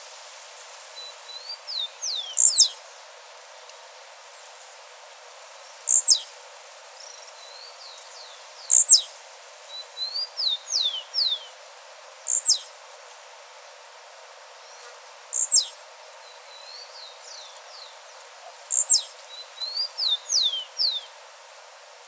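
Male blue-black grassquit singing its short, high 'tiziu' song, a sharply falling note, six times at intervals of about three to four seconds, with softer, lower chirps in between.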